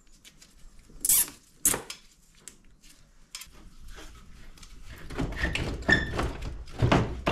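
Metal parts of an ATV's engine and frame being handled: two sharp knocks a second or so in, lighter clicks, then a denser scraping rumble with more clunks over the last couple of seconds.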